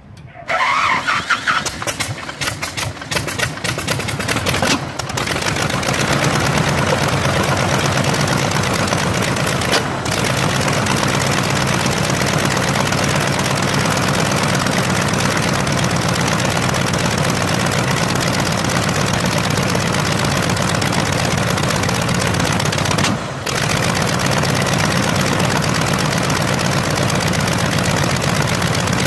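Continental R-670 seven-cylinder radial aircraft engine cold-starting. After a short whine it fires raggedly and unevenly for a few seconds, catches about five seconds in, and settles into a steady, even run.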